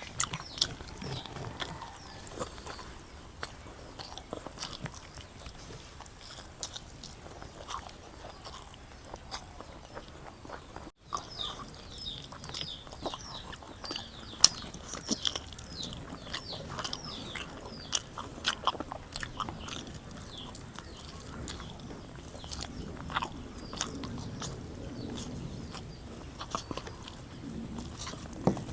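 A person eating close to the microphone: irregular biting, chewing and crunching with wet mouth clicks. The sound drops out for an instant about eleven seconds in.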